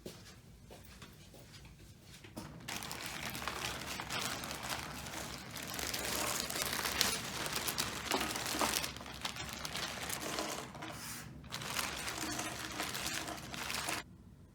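Dense crinkling, crackling noise made of many small clicks. It starts about two and a half seconds in and cuts off suddenly near the end.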